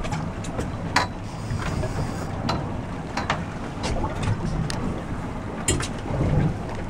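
Fishing boat moving slowly with its 300 hp outboard motor running, a steady low rumble with wind buffeting the microphone. Scattered short sharp clicks and knocks come and go over it.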